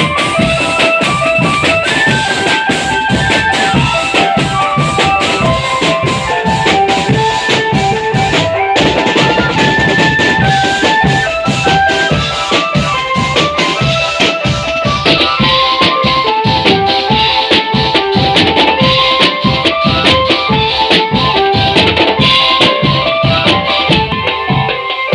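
Marching drum band playing: a dense, driving drum beat under a melody of short, quick notes.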